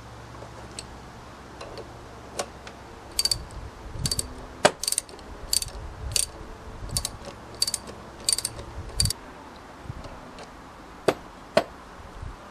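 Ratchet spanner driving a screw through a steel angle bracket into wood: about nine bursts of pawl clicking, one every 0.7 seconds or so, as the handle is swung back between turns. Near the end there are two sharp knocks.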